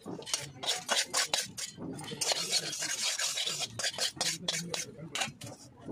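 Flat metal spatula scraping and stirring soya chunks in a metal kadai (wok), in quick rasping strokes several a second, with a longer unbroken scrape about two seconds in.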